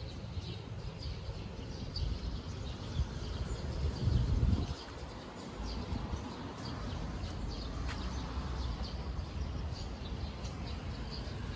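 Small birds chirping in short, repeated high calls over a low outdoor background. A brief low rumble about four seconds in.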